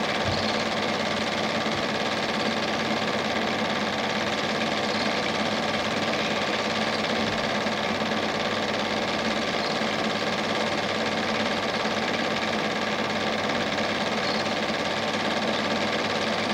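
Steady mechanical whirr of a cine projector running, an even hum with no change throughout.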